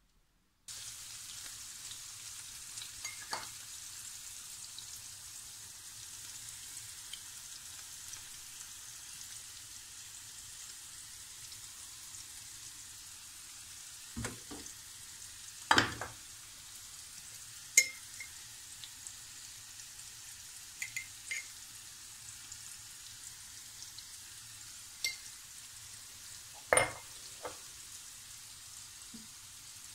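Boiled chickpeas frying in sunflower oil in a nonstick pan, a steady sizzle. A few sharp knocks and taps against the pan come now and then, the loudest about halfway through and near the end.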